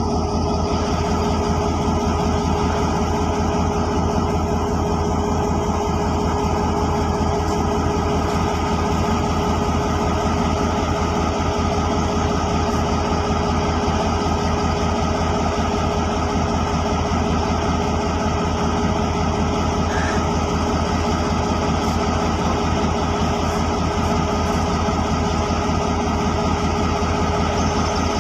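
GMCU-15 diesel-electric locomotive's engine idling steadily, with a constant low, fast throb and a steady whine over it.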